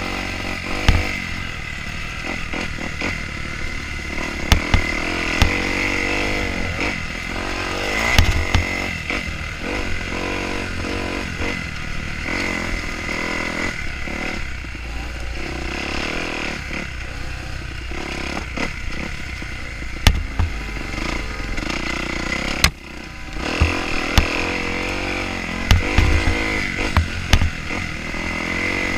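KTM 150 XC-W TPI's fuel-injected 150 cc two-stroke engine being ridden on a dirt trail, revving up and down as the throttle opens and closes, heard from on the bike. Sharp knocks from the bike hitting bumps come through now and then, and the engine note drops away briefly about 23 seconds in.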